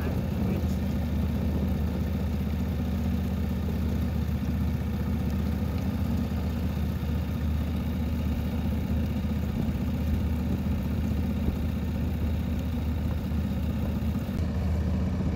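A boat's engine running steadily at an even speed.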